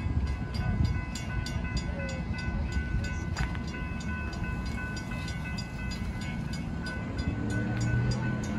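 Railroad grade-crossing warning bell ringing, about three strikes a second, over the low rumble of a train at the crossing. Deeper steady tones swell near the end.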